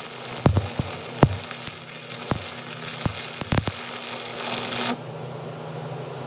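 Stick welding arc on a stainless-clad steel billet at low amperage: a steady crackling hiss with sharp pops, which cuts off suddenly about five seconds in as the arc is broken, leaving a low hum.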